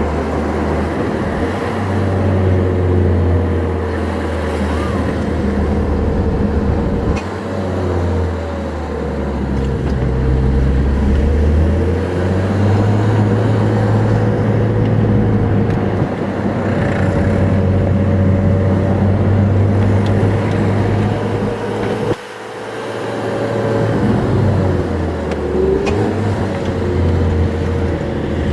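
Porsche 991 GT3 RS's naturally aspirated flat-six, heard from inside the cabin with road and tyre noise, running at moderate revs. The engine note shifts up and down in steps several times, with a sudden lift off the throttle about 22 seconds in before it picks up again.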